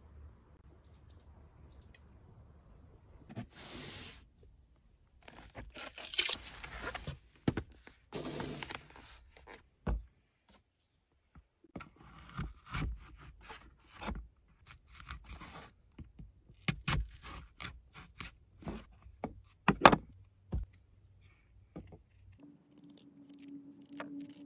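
Food-preparation handling sounds: rustling and crinkling at first, then a small knife cutting into an apple over a plate, with scattered sharp knocks and scrapes, the loudest about 20 seconds in. A low steady hum starts near the end.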